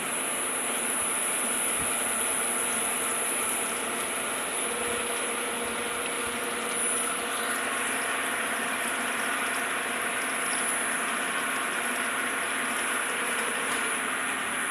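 Hamai 60SP CNC gear hobbing machine running steadily: a constant mechanical hum with a thin high whine.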